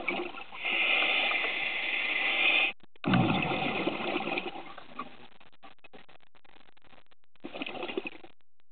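Scuba regulator breathing: a long inhaled hiss, then an exhalation of bubbles gurgling out and trailing off into crackles, and a second, shorter inhale near the end.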